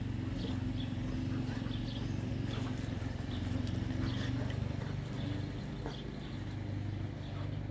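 A Boerboel and a Serbian mastiff play-fighting on grass: scuffling, with many short scattered knocks of paws and bodies over a steady low rumble.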